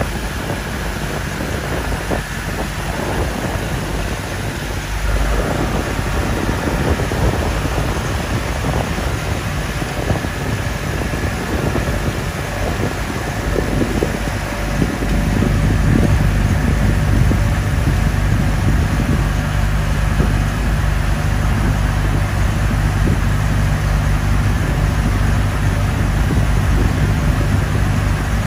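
A boat's engine running steadily under way, with wind and water noise over it; its low drone grows a little louder about halfway through.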